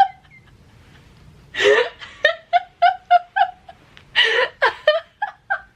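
A woman laughing hard. After a quiet start comes a sharp intake of breath and a run of quick, high-pitched 'ha' pulses, about four a second, then a second gasping breath and more pulses near the end.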